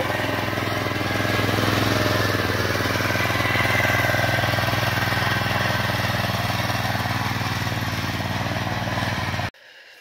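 Small petrol engine of a walk-behind mini tiller running steadily under load as its rotary tines churn the soil, then cutting off suddenly near the end.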